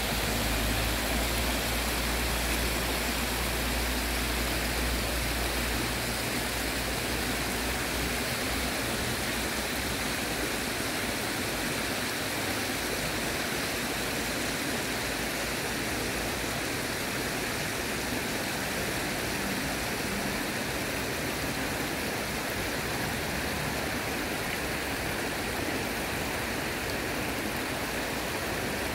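Shallow stream water rushing and rippling over rocks and stepping stones, a steady hiss. A low rumble sits under it for about the first eight seconds.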